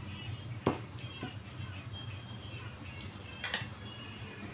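A few short clinks of dishes during a meal, the sharpest about two-thirds of a second in and two more near the end, over a steady low hum.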